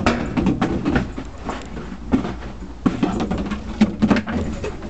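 A Bernese Mountain Dog playing with a plastic bucket: irregular knocks and clatters of the plastic, over a steady low rumble.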